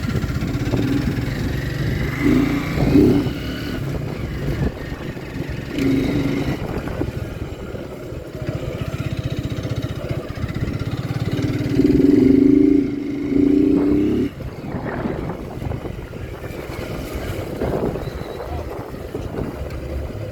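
Motorcycle engine running with road noise. A few louder, steady pitched notes come and go, the longest for about two seconds some twelve seconds in.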